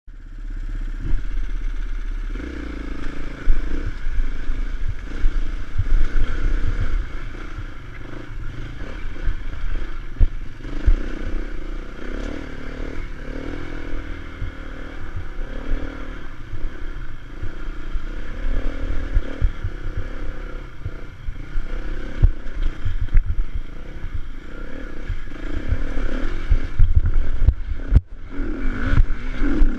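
Off-road motorcycle engine pulling up a rough uphill trail, its revs rising and falling constantly, with frequent knocks and rattles from the bike.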